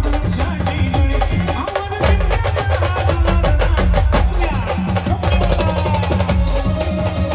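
Live Maharashtrian brass band music: a fast, steady drum and percussion beat with a bass line under a melody.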